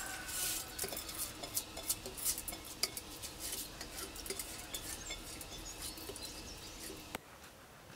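A metal spoon scraping and tapping inside a stainless steel saucepan as rice is pushed out into a glass bowl, making repeated short scrapes and clicks, with one sharp click near the end.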